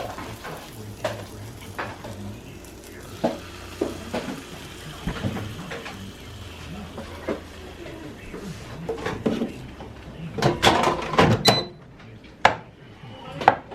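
Kitchen clatter of dishes, pots and utensils: scattered clinks and knocks, then a louder run of clattering about ten seconds in and a single sharp knock just after.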